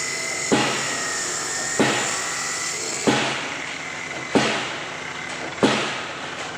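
A 4.5-tonne hydraulic pile-driving hammer striking a PHC concrete pile at a steady rhythm, five blows about a second and a quarter apart. Each blow is a sharp impact that rings off, over a steady machine hum.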